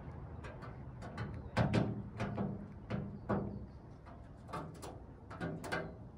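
Crows pecking at the lid of a steel storage bin: a string of irregular sharp beak taps and knocks on the metal, some with a hollow thump, coming in small clusters.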